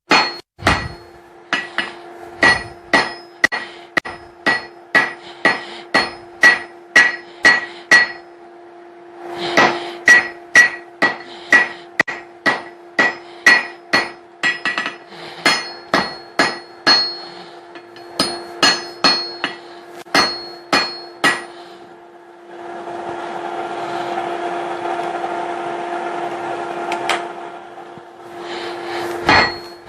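Hand hammer blows on hot steel at the anvil, about two a second, each with a ringing clang, as a ball peen hammer head is drawn out into the tapered point of a hammer eye punch. The hammering comes in several runs. In a long break near the end, a steady rushing noise lasts about four seconds before the blows start again.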